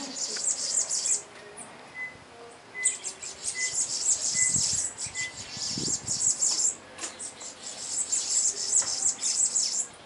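Small songbirds chattering and singing in high, rapid bouts that stop and start three times. Another bird repeats a short, even whistled note five times in a row, beginning about two seconds in.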